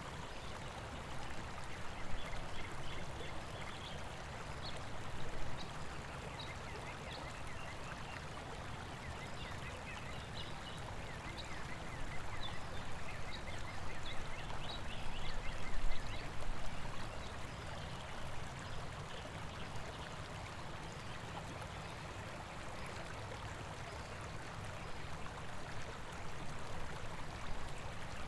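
Steady rush of running water, with birds giving many short high calls through the first half or so and a few louder swells.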